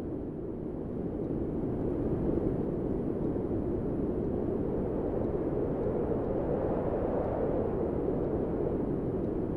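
Wind blowing steadily as a deep rushing noise. It eases slightly at the start and swells again about two seconds in.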